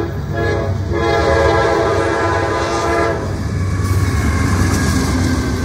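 Norfolk Southern AC44C6M diesel locomotive's air horn sounding a chord of several tones, warning at the grade crossing: two brief breaks, then a long blast that stops about three seconds in. The locomotive's engine and wheels then run loudly as it passes close by.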